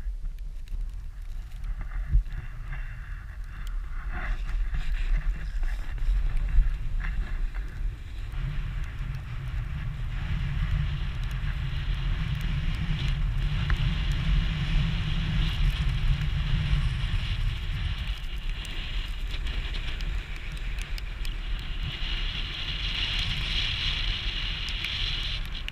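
Wind buffeting the microphone of a camera moving downhill, as a low rumble that is strongest in the middle, with a hiss of sliding over snow that grows louder near the end. A few sharp clicks come in the first seconds.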